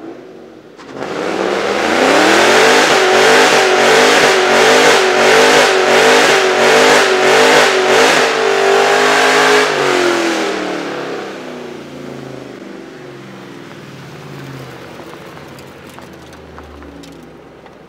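2006 Mustang GT's 4.6-litre V8 with long-tube headers and straight pipes, revving hard through a burnout, the loud note pulsing about twice a second for several seconds. About ten seconds in the revs drop and the engine settles to a much quieter note.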